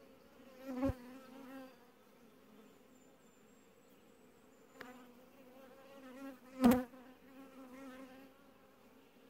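Honeybees buzzing around an open hive: a steady, even hum that twice swells much louder with a wavering pitch, about a second in and more strongly past the middle.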